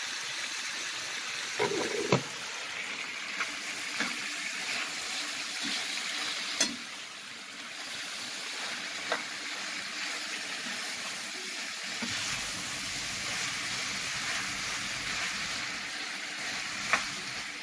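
Chicken and bell pepper strips frying with a steady sizzle while a metal spoon stirs them, clicking against the pan a few times.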